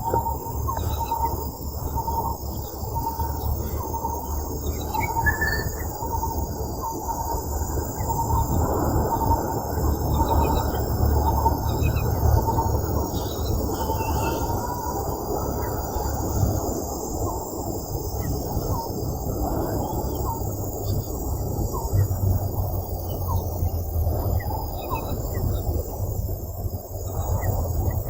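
Outdoor ambience: a steady high insect drone with scattered short bird-like chirps over a dense low rumble of noise.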